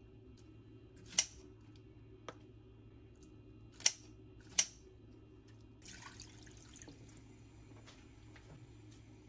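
Metal tongs clicking sharply against an earthenware pot three times, with a lighter tap between, as kimchi is set in. About six seconds in, a soft, steady pour of liquid into the pot begins.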